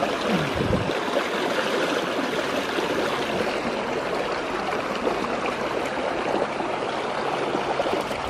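Fast, rain-swollen river rushing and churning white through a stone bridge arch: a steady, unbroken rush of water.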